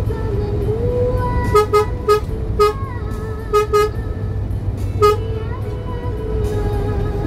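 A vehicle horn giving seven short toots of the same pitch, some in quick pairs, over a steady low engine and road rumble, with background music running underneath.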